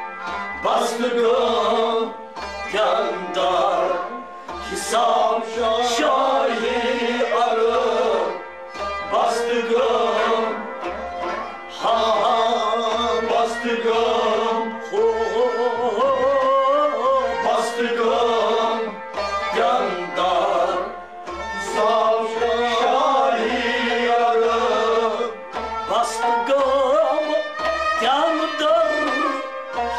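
Folk ensemble playing a sung kalam: harmonium chords, a tumbaknaer clay goblet drum keeping a steady beat, a bowed sarangi and a plucked rabab, with a man singing over them.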